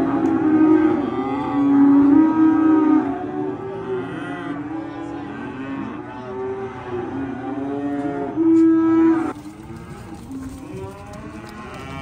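A group of newly arrived beef feeder calves bawling, many moos overlapping one another. The calling is loudest early on and again at about nine seconds, then drops back a little.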